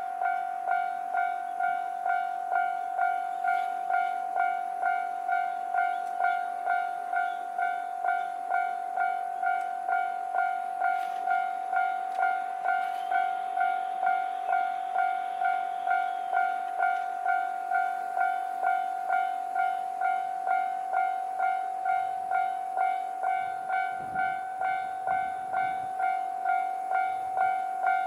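Japanese level crossing's electronic warning bell ringing, a steady two-tone ding repeating about twice a second. In the last few seconds the low rumble of the approaching JR Hokkaido H100 diesel-electric railcar joins in.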